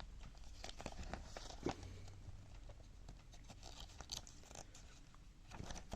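Faint rustling and light crinkling of a paper instruction manual being handled and paged through, with scattered soft clicks.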